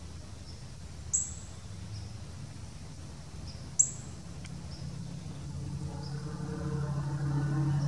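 Two sharp, high bird chip notes about two and a half seconds apart, with fainter high chirps scattered between them. A low, steady hum with several tones builds up over the last few seconds.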